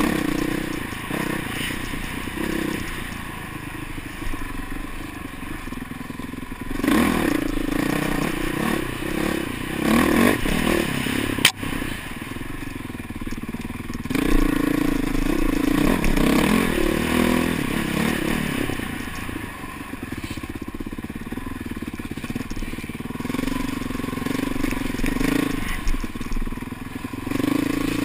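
Dirt bike engine under way on a rough trail, the throttle opening and closing so that the engine note swells and drops several times, with clatter and scraping from the bike over the ground. Heard through a helmet-mounted camera; a single sharp click comes about eleven seconds in.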